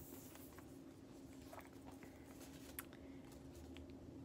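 Near silence with light handling noise and a few faint, brief clicks as a leather bag strap with metal clasps is handled and fitted.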